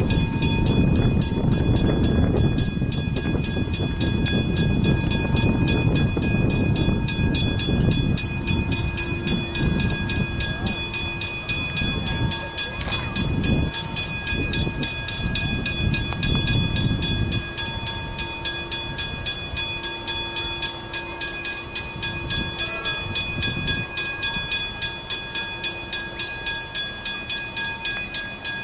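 Level crossing warning bells ringing in rapid, even strokes with steady ringing tones. Under them a passing train rumbles for the first seventeen seconds or so, then the rumble stops abruptly and the bells ring on alone.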